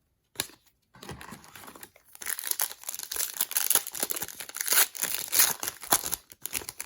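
Crinkling of a plastic trading-card pack wrapper being handled and torn open, a dense crackle that builds from about two seconds in.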